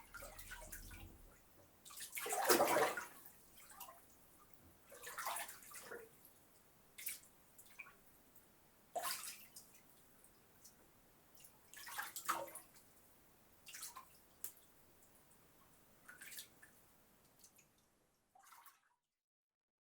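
Water splashing and sloshing in a bathtub as a bather moves, in separate short splashes every couple of seconds, the loudest about two seconds in. It cuts off about a second before the end.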